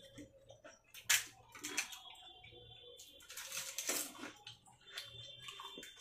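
Fuchka being eaten fast: crisp puri shells crunching and wet slurping of the tamarind water, in several short bursts, the loudest about a second in and another run around four seconds in.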